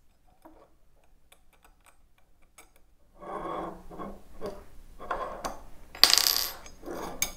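Small metal hardware being handled: washers, screws and a turnbuckle clinking and rubbing against an aluminium rod. A few faint ticks at first, then louder clinks and rattling from about three seconds in, loudest a little after six seconds.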